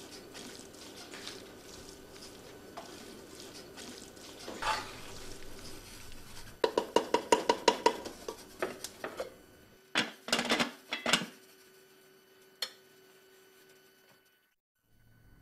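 Kitchen utensils clinking against pots and dishes: a quick run of clicks about halfway through, then a few sharper knocks, before it falls quiet near the end.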